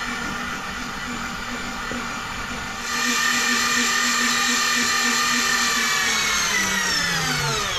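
Daiwa Seapower 800 electric fishing reel's motor whining steadily as it winds a fish up from deep water, louder from about three seconds in, its pitch falling away near the end.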